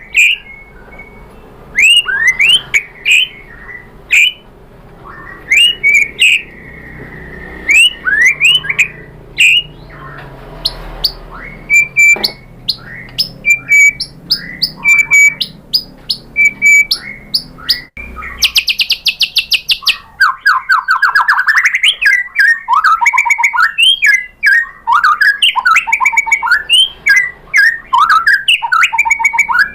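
White-rumped shama (murai batu) singing: loud, separate rising whistled notes and short repeated phrases, then about two-thirds through a fast rattle and a dense run of rapid chattering notes.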